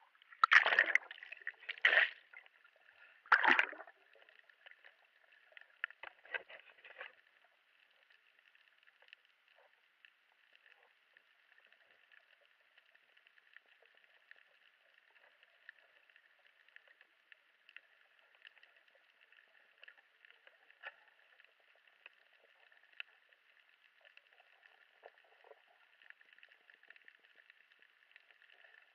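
Water splashing as the camera breaks through the sea surface and goes under, three loud splashes in the first four seconds and a few smaller ones after. Then the faint, steady underwater hiss over the reef, with scattered small clicks.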